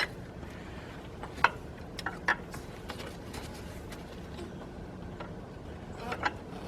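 A handful of separate light clicks and clinks, like hand tools and small metal parts being handled during spark plug removal, over a faint steady background hum.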